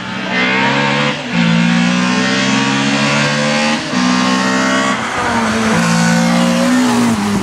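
Race car engine at full throttle, its note climbing in pitch and dropping briefly several times as it changes gear.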